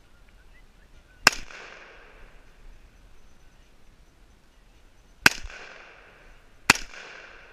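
Three SKS rifle shots in 7.62×39mm, each a sharp crack with an echo trailing off for about a second: the first about a second in, the next about four seconds later, the third a second and a half after that.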